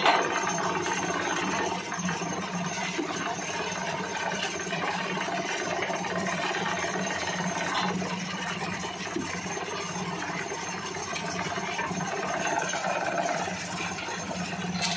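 Blue motor-driven grinder for organic fertiliser running steadily, with a low hum and a dense rattle as fermented goat manure is tipped into its hopper and ground.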